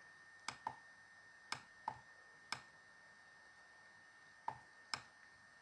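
Computer mouse clicking: about seven short, sharp clicks at irregular spacing, some close together in pairs, over a faint steady hum.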